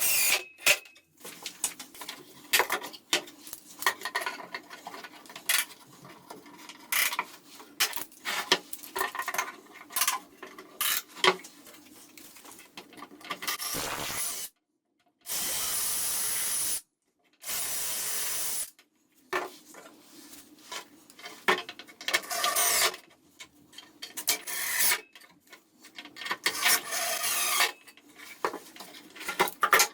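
Hand work on wood: irregular rubbing and scraping strokes, like sanding or filing. About halfway through come three short steady hissing passages, separated by abrupt dead gaps.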